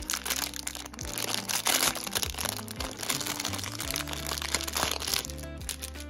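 Clear plastic packaging bag crinkling and crackling as it is handled, loudest about two seconds in and dying away near the end, over background music with a steady low bass line.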